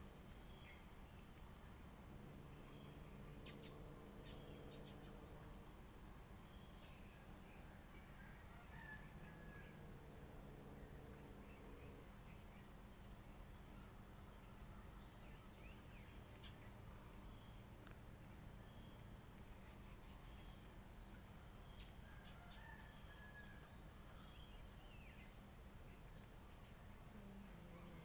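Faint, steady high chirring of insects such as crickets, with a few faint bird chirps.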